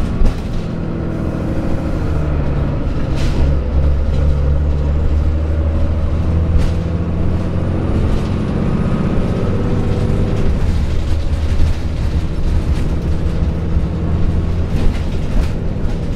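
Cummins ISM inline-six diesel engine with Allison B500R automatic transmission in a 2000 Neoplan AN460A articulated bus, running under way. The engine note changes in pitch and loudness several times, loudest a few seconds in, with scattered knocks and rattles.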